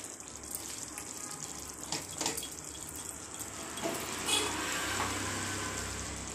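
Chicken curry simmering in a nonstick pan, a steady bubbling sizzle, while a spatula stirs the pieces with a few light scrapes and knocks against the pan.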